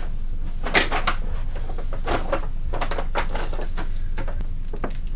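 A cabin door shutting about a second in, then a brown paper bag rustling and crinkling as it is carried, over a steady low hum.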